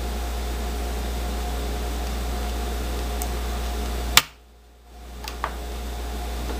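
Steady low background hum with a faint whine. About four seconds in there is a sharp click and a half-second drop-out, then two small plastic clicks as fingers press the cover of a welding helmet's auto-darkening filter cartridge into place.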